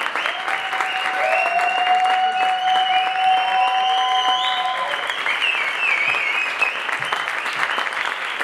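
Theatre audience applauding steadily, with a few long drawn-out cheers held over the clapping for several seconds in the middle.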